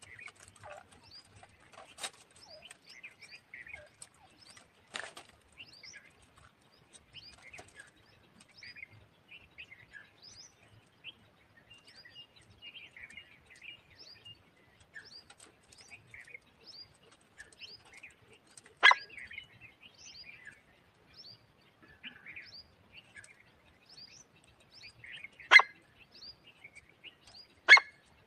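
Partridge (teetar) calling: a few loud, sharp calls in the second half, over steady chirping of other small birds.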